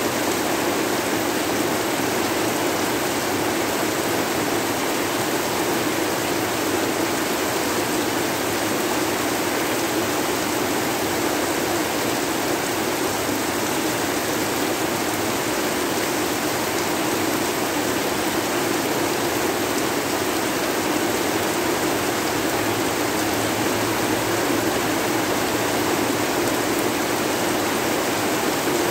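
Steady heavy rain, an even hiss with a fuller band in the low middle and no separate drops, thunder or changes.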